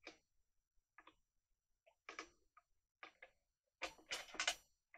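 Light clicks and taps of plastic model-kit parts being handled and fitted together. They come one at a time every second or so, then several quick, louder clicks a little before the end.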